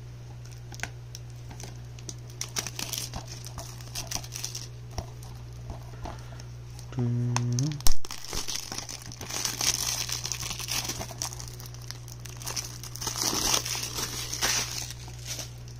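Clear plastic shrink-wrap being peeled off a DVD case and crumpled in the hand, crinkling and crackling throughout. There is a single sharp click about eight seconds in.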